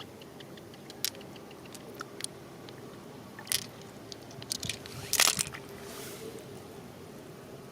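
Shell cracking and crunching as it is broken open, in a handful of separate sharp cracks, the loudest cluster about five seconds in.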